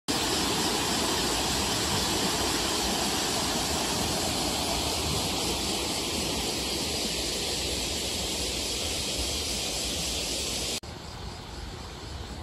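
Muddy river in flood pouring over a low weir: a steady, loud rush of water. About eleven seconds in it cuts off suddenly to a quieter, more uneven rushing.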